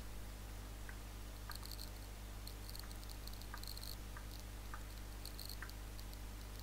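Faint computer-mouse sounds: several single button clicks and short runs of scroll-wheel ticking as the view is zoomed in, over a steady low electrical hum.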